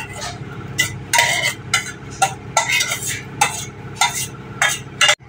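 A spoon scraping and knocking thick custard vermicelli out of a cooking vessel into a glass bowl, about a dozen short, quick scrapes in a row.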